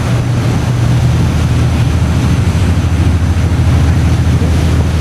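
Passenger ferry under way: a steady low engine drone with the rush of water and air over it.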